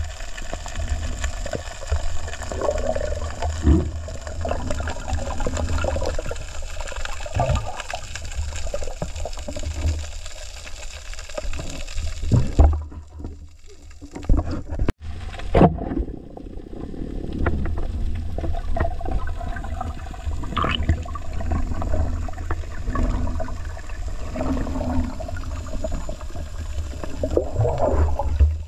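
Underwater sound through a camera housing on a night dive: a steady low rumble of water moving against the housing, with scattered knocks and swishes from the diver's movement. About thirteen seconds in, the sound drops away sharply and cuts out briefly, then the rumble returns.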